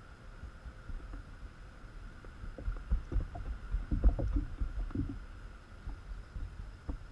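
Hollow thumps and knocks through the Feelfree Lure 11.5 kayak's plastic hull and its camera mount as the angler shifts his weight while playing a fish. The thumps bunch up in the middle, with the loudest about four seconds in, and a few more come near the end.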